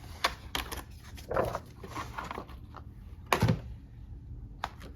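Paper and ring-planner handling: scattered rustles and clicks as pages are pulled and moved, with a single louder knock about three and a half seconds in.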